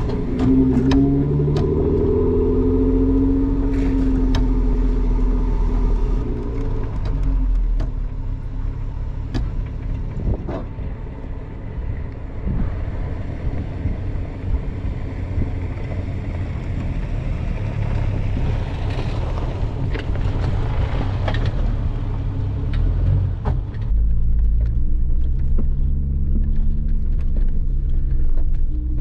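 Jeep Wrangler driving a muddy, rutted dirt trail. Its engine climbs in pitch as it accelerates in the first few seconds, then gives way to a rumble of tyres on the rough ground with scattered knocks. A steady engine drone takes over near the end.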